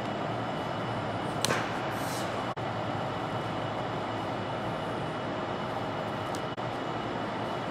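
Steady background rumble and hiss, with a brief sharp scuff about a second and a half in.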